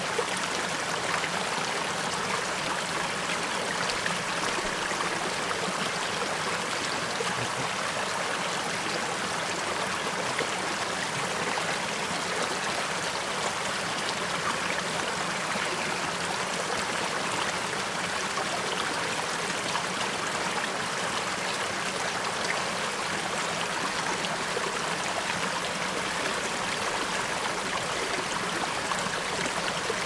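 Gentle forest stream flowing steadily: an even, unbroken rush of running water.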